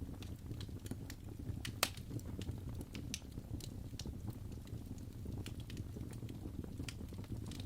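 Wood fire crackling in a fireplace: irregular sharp pops and snaps over a steady low rumble of the flames, with one louder pop about two seconds in.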